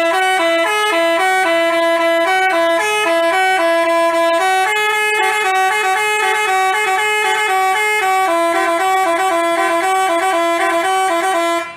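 Basuri telolet bus horn playing a fast melody, notes stepping up and down several times a second in two layered pitches. It starts and stops abruptly.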